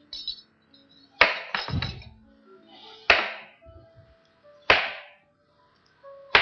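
Kitchen knife chopping raw taro root into chunks on a cutting board: a quick run of three strikes, then single chops about every one and a half seconds.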